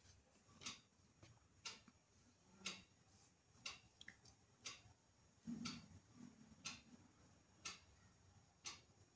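Faint ticking of a clock, one tick about every second.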